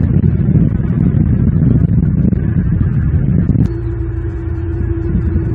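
Steady low outdoor rumble of road traffic and wind noise on the nest camera's microphone. About two-thirds of the way in, after a click, it changes abruptly to a lighter rumble with a steady low hum.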